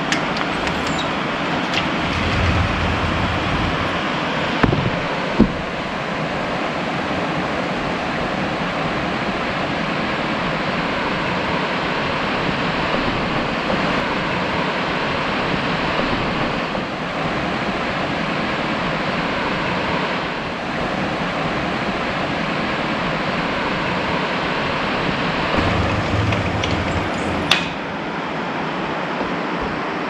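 Steady rushing of flowing river water, an even unbroken hiss. Near the end a single sharp click cuts through it.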